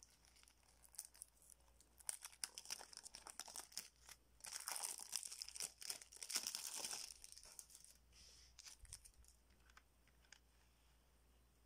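Cellophane shrink-wrap being torn and peeled off a plastic CD jewel case: dense crinkling and crackling of the thin plastic, busiest in the middle, then thinning to a few faint crackles near the end.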